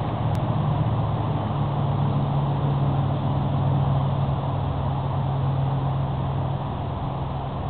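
Steady low engine drone over a rushing noise, swelling slightly and easing off again.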